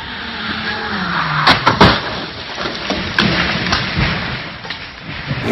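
A car speeding along a wet road, the hiss of its tyres on the water rising as it approaches. About a second and a half in it crashes: a quick cluster of loud, sharp impacts as it hits the roadside, then a few lighter knocks.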